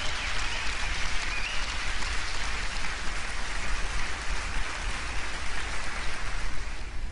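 Large audience applauding steadily, a dense crowd of hands clapping together, thinning slightly near the end.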